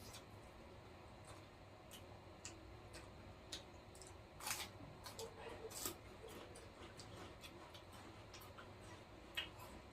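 Faint, scattered small clicks and taps, irregularly spaced, with two louder ones about four and a half and six seconds in.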